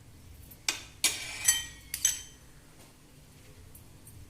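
Metal kitchen utensils clinking: about five sharp clinks with a ringing metallic tone in quick succession during the first half.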